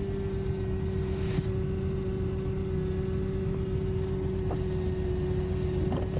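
Steady low rumble of a vehicle running, with a single steady humming tone held on one note throughout.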